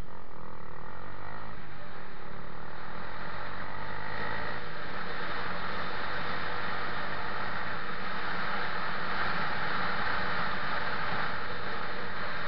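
Wind rushing over the microphone of a motorcycle-mounted camera while riding, with the motorcycle's engine running steadily underneath. The wind rush grows louder about a third of the way in and stays strong.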